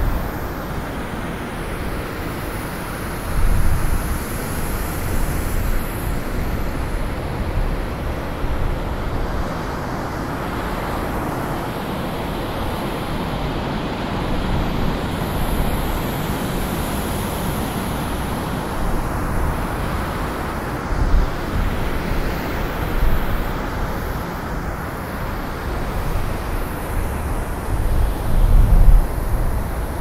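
Blizzard wind blowing steadily as a low, rushing noise, swelling in stronger gusts about three and a half seconds in and again near the end.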